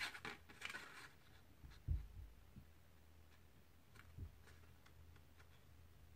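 Near silence with faint handling of a plastic circle punch and card stock as the card is slid into the punch: a little soft rustling at first, then two dull, soft thumps about two and four seconds in.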